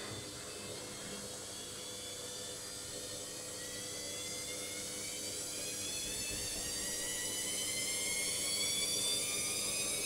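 Logik front-loading washing machine spinning up: the motor and drum whine rises steadily in pitch and grows louder as the spin speed climbs.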